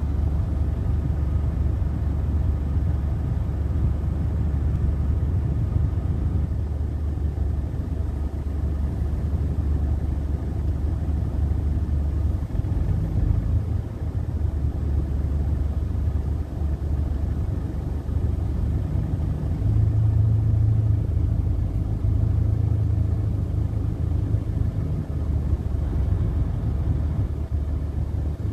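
Car engine idling, heard from inside the cabin as a steady low hum that steps up slightly about twenty seconds in.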